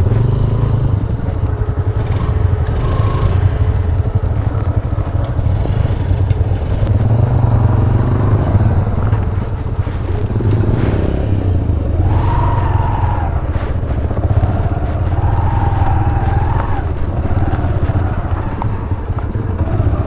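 Yamaha YBR 125G motorcycle's 125 cc single-cylinder four-stroke engine running steadily as the bike is ridden along a rough dirt trail.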